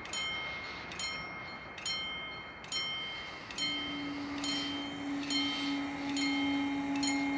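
Level-crossing warning bell ringing, one ringing strike about every second, signalling that the crossing is closing. About halfway in, a steady low hum comes in under the strikes.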